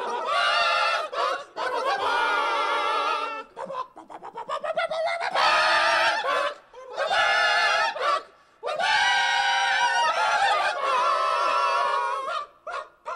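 Outro jingle: a melody of held, wavering notes in phrases a second or two long, with short breaks between them.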